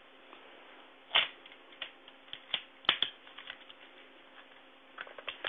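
Scattered plastic clicks and clacks from handling a spring airsoft revolver while it is being fixed after failing to fire: one sharp click about a second in, a run of them between two and three and a half seconds, and two more near the end. Heard thinly through a Bluetooth headset microphone.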